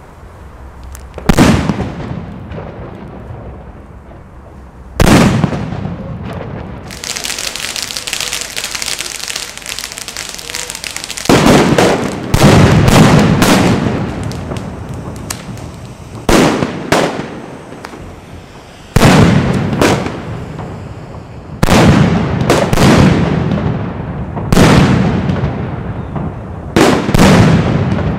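About a dozen loud firecracker (Böller) bangs going off one after another, each dying away in an echo. Between them there are a few seconds of steady hissing.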